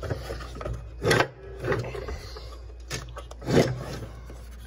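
Scraping and rubbing noises: two short, loud scrapes about a second in and at about three and a half seconds, with fainter rustling between.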